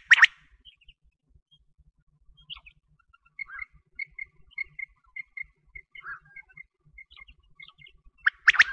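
A quail calling: a quick burst of sharp, loud notes at the start and again near the end. In between come soft, short notes, about three a second.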